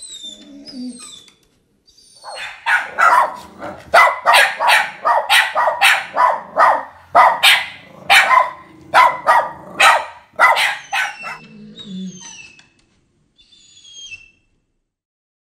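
Border terrier barking nonstop at a visitor, two to three sharp barks a second for about nine seconds, then stopping.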